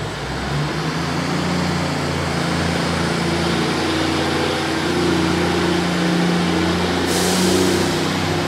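Class 150 Sprinter diesel multiple unit pulling away from a station, its underfloor Cummins diesel engines running under power with a steady engine note. A hiss of air starts suddenly about seven seconds in.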